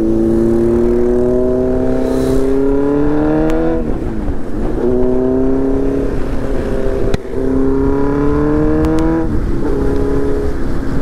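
Kawasaki Z900's inline-four engine through a full titanium Arrow exhaust, accelerating hard. The pitch climbs steadily, drops at an upshift a little under four seconds in, climbs again, and drops at a second upshift about nine seconds in before holding steady.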